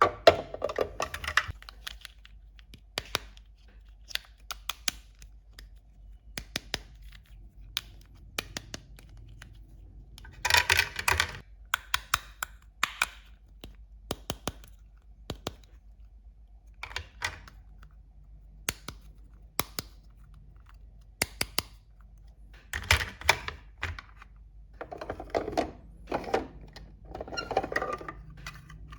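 Small plastic toy kitchen pieces being handled and set down: many light, irregular clicks and taps, with a few brief scratchy bursts about a third of the way in and again near the end.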